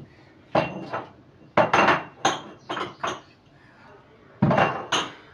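Dishes and cutlery being gathered and stacked: about nine sharp clinks and clatters, each with a brief ring, coming in three irregular groups.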